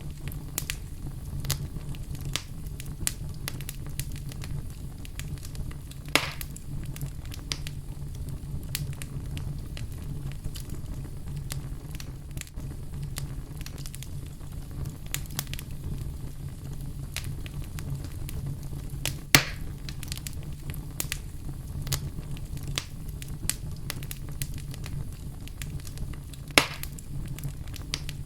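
Fire crackling in a fireplace: frequent small snaps over a low steady rumble, with three louder pops about six, nineteen and twenty-six seconds in.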